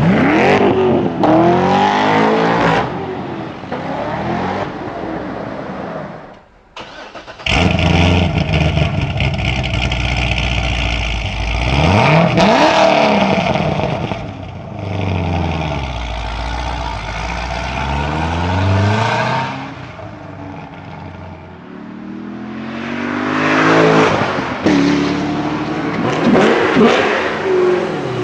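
Chevrolet Corvette's 7.0-litre LS7 V8 revving and accelerating several times, its pitch rising and falling with each run, with a brief drop-out about seven seconds in.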